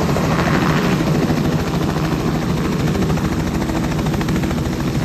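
Robinson R66 helicopter running steadily, its turbine engine and rotor making a continuous loud drone with a fast even beat.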